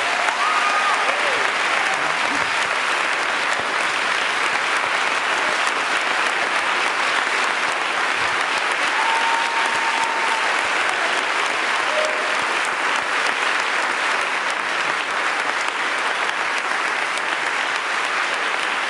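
Large audience applauding, a dense, steady clapping that holds at the same level throughout.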